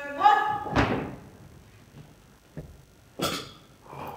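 A drawn-out, voice-like call held on one pitch and then stepping up, cut off by a heavy thump just under a second in. A few scattered knocks and shuffles on the stage follow as the cast stand.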